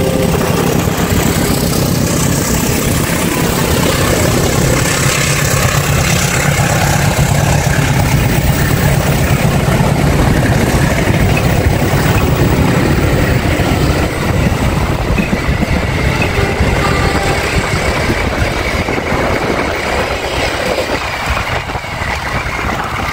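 A passenger train passing at speed: a CC 203 diesel-electric locomotive's engine hums low, then the carriages' wheels run loudly over the rails in a steady rushing noise. The noise eases off near the end as the train draws away.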